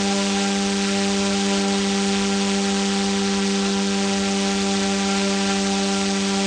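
OMP M2 mini electric RC helicopter running at a steady speed: an even motor-and-rotor whine over the hiss of the blades.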